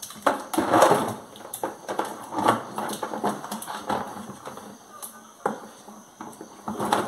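Plastic bucket knocking and scraping on a concrete floor as a puppy noses into it, tips it over and paws at it: a string of irregular clatters, loudest about a second in.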